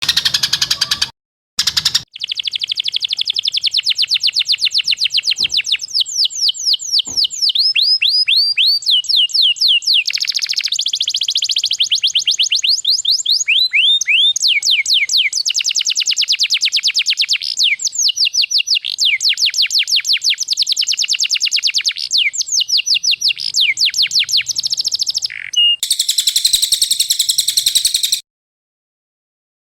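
Songbird 'tembakan' call: a fast run of sharp, falling whistled notes, repeated in bursts with short breaks. Near the end a denser, harsher trill takes over, then it cuts off abruptly.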